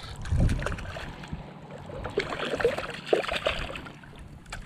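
Lake water splashing and lapping in short, irregular splashes that are busiest in the middle, with a low buffet on the microphone about half a second in.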